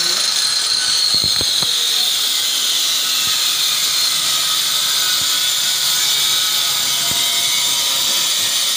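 An electric power tool running continuously with a high whine that sinks slowly in pitch over a steady hiss. A few sharp clicks come about one to one and a half seconds in.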